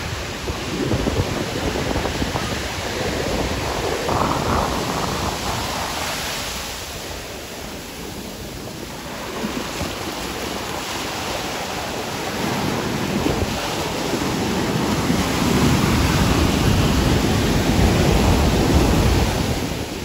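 Ocean surf washing onto a sandy beach, swelling and ebbing, with wind buffeting the microphone.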